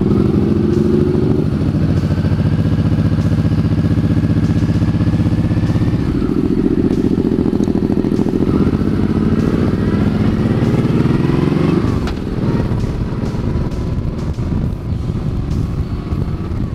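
Cruiser motorcycle engine accelerating away from a stop, its pitch climbing through the gears with an upshift about six seconds in. Near twelve seconds in the throttle eases off and the engine settles, with wind noise on the microphone.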